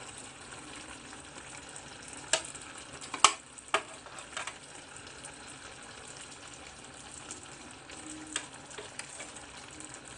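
Pot of palm-oil soup sizzling steadily while a metal spoon adds ground affang leaves, with several sharp clinks of the spoon against the dishes, the loudest about three seconds in and another near eight seconds.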